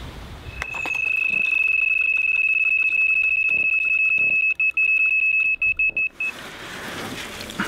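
Electronic carp bite alarm on the rod pod going off in a fast run of high beeps that merge into one continuous tone for about five and a half seconds, then stopping suddenly: a carp has taken the bait and is pulling line in a strong run.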